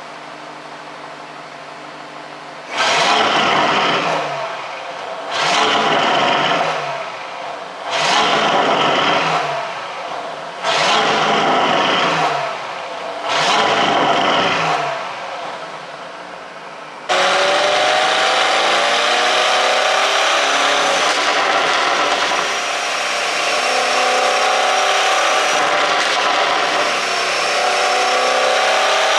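2021 Audi RS7's twin-turbo V8, running an ECU tune for exhaust pops. It idles, then is blipped five times, every few seconds, each rev rising sharply and falling back. Near the middle it changes suddenly to a loud, steady, continuous engine note with slowly wavering pitch.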